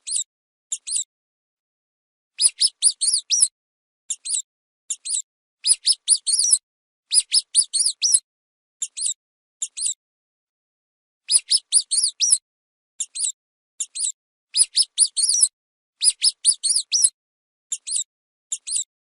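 Mouse squeaking: short, high squeaks coming in quick runs of one to six, separated by brief silences, with a longer pause about ten seconds in.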